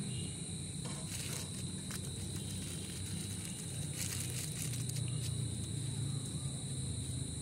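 Steady high-pitched insect chorus, two even tones held throughout, over a low rumble, with a few faint rustles.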